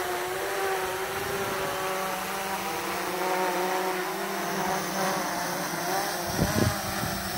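Yuneec Typhoon H hexacopter's six electric motors and propellers humming steadily, the pitch wavering slightly, as the drone is throttled down from the air toward a manual landing. A couple of brief low thumps come near the end.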